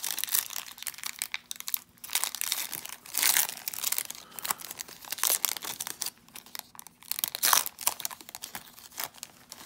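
Foil wrapper of a 2018 Topps Chrome baseball card pack being torn open and peeled back by hand, crinkling in irregular crackling bursts.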